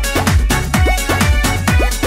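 Instrumental break of a Bhojpuri pop song with no singing: an electronic dance beat of fast, even drum hits, with low drum strokes that drop in pitch on each beat.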